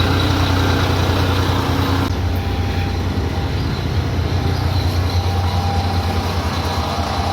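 Large diesel engine running steadily with a deep, even hum, its tone shifting slightly about two seconds in.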